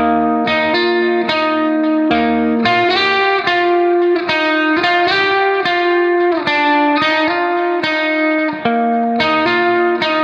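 Background music: a plucked guitar melody, its notes following one another at a steady pace.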